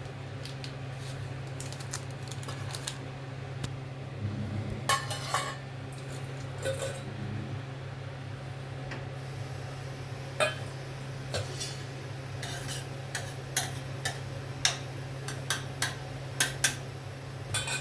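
A metal utensil clinking and knocking against a cooking pan in scattered strokes that come more often in the second half, over a steady low hum.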